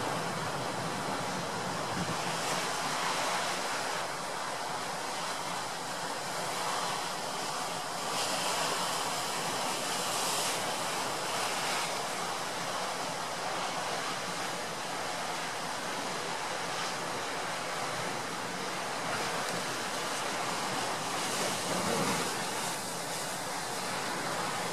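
Heavy storm surf breaking on a rocky shore in strong wind: a steady rush of breaking waves that swells as bigger waves come in.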